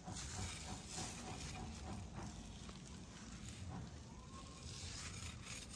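Faint scratching and rustling as a kitten wrestles with and gnaws a wooden stick on artificial grass.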